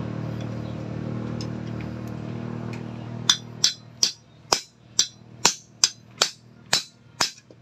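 Motorcycle steering-stem bearing race being driven off with a steel punch: about ten sharp metal-on-metal strikes, roughly two a second, beginning about three seconds in after a steady low hum fades.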